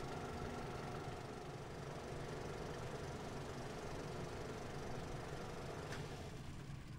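Film projector and its platter running: a steady mechanical whir with a fluttering low rattle and a set of steady hum tones. A sharp click about six seconds in, after which the hum tones fade out.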